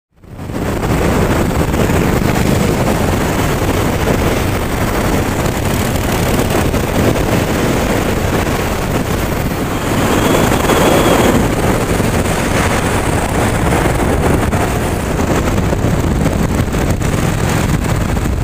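Vintage Harley-Davidson V-twin motorcycles riding at road speed, heard from a camera on a moving bike: a steady engine rumble under heavy wind noise on the microphone.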